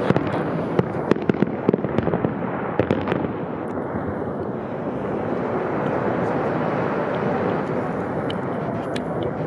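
Aerial fireworks display: a quick run of sharp bangs and crackles for about three seconds, then a dense, continuous crackling din with only a few sharp reports near the end.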